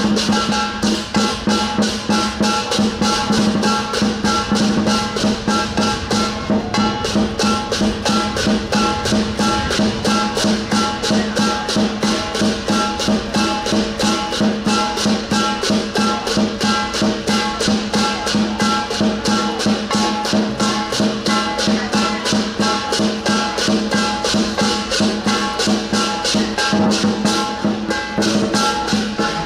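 Lion dance percussion: a large drum with cymbals and gong playing a fast, steady beat that keeps driving without a break.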